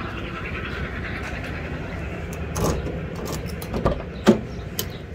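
A pickup truck's door handle is pulled and its latch clicks open: a sharp click just after four seconds in, the loudest sound. A few lighter knocks come before it. Under them runs a steady background of outdoor work noise, a lot of noise all around.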